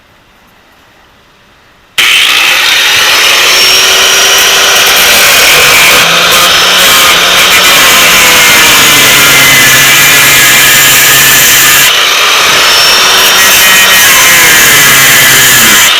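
Metal cut-off wheel starting up about two seconds in and cutting through metal, loud and continuous, its pitch dipping and rising as the wheel bites and eases, while an access window is cut to reach the 42RLE transmission's solenoid pack connector.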